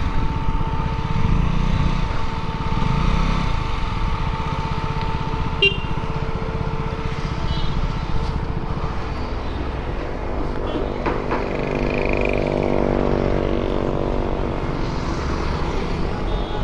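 A motorcycle engine running at low road speed with wind and road noise; from about ten seconds in the engine note climbs slowly.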